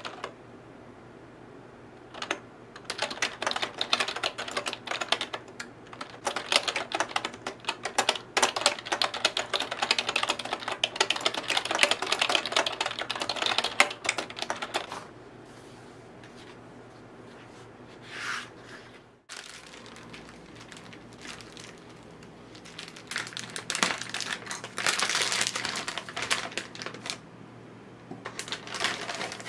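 Fast typing on a retro typewriter-style keyboard with round keycaps: a long run of clacking keystrokes. After a pause, a shorter stretch of clattering comes near the end.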